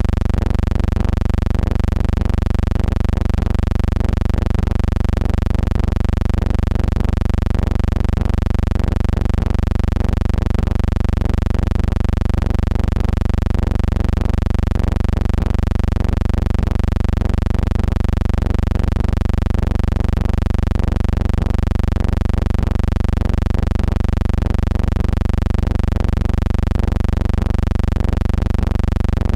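Steady loud low hum with a buzz of many evenly spaced overtones and a slight regular pulse in loudness, unchanging throughout: electrical hum on the soundtrack of a silent film transfer.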